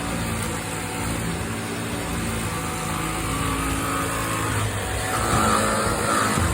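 Vacuum cleaner running steadily, a continuous motor hum and airflow hiss, with its pitch wavering a little in the second half.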